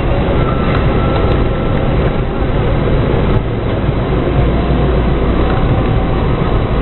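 A 4x4's engine and its tyres on packed snow, a steady low running drone heard from inside the cabin while driving.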